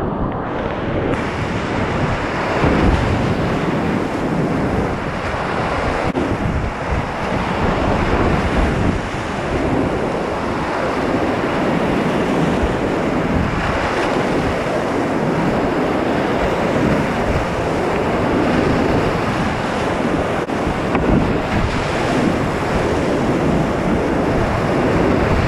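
Whitewater rapids rushing loudly around a kayak running a creek, with wind and spray buffeting the camera's microphone.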